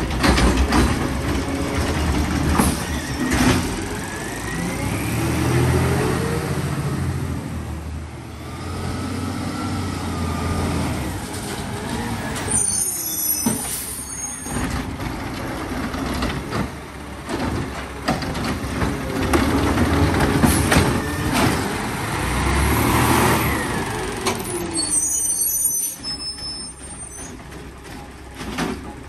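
Diesel engine of a Peterbilt 520 garbage truck with a McNeilus ZR side-loader body, revving up and down, with sharp clanks and knocks. Two hisses of an air brake come about halfway through and near the end.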